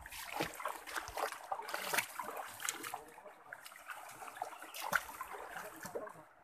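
Water splashing and sloshing as people wade through a shallow rocky stream, with the stream trickling over stones; irregular splashes, the sharpest about two seconds in and again near five seconds.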